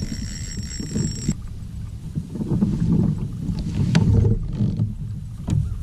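Low, uneven rumbling and knocking of a Hobie Outback plastic fishing kayak and its gear being handled on the water, with a sharp click about four seconds in.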